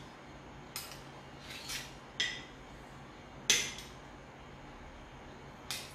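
Metal spoons clinking and scraping against a ceramic plate as a slice of cheesecake is worked onto it. There are about five separate clinks, the loudest about halfway through.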